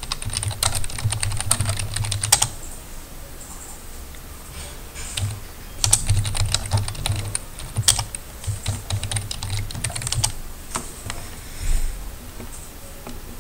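Computer keyboard being typed on in quick runs of keystrokes, with pauses of a second or two between runs and only a few scattered keys near the end.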